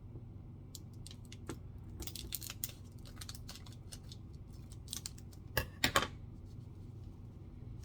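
Foil trading-card pack wrapper being handled and torn open: scattered crinkles and clicks, with a cluster about two seconds in and a few sharper crackles about six seconds in.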